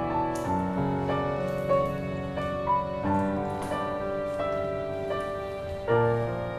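Background piano music: single notes and chords struck one after another at an unhurried pace, each ringing and fading.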